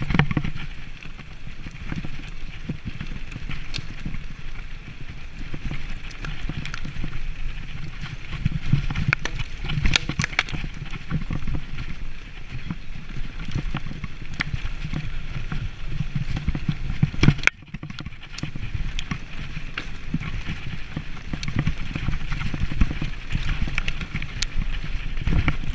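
Mountain bike riding fast down a dirt forest trail: tyres rolling over the ground, with frequent sharp rattles and knocks from the bike over the bumps and wind rumbling on the microphone. About two-thirds of the way through, one loud knock, then the sound drops out for a moment.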